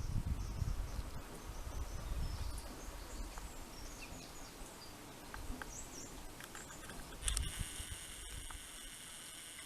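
Outdoor background noise with a low rumble and scattered faint chirps, like birds.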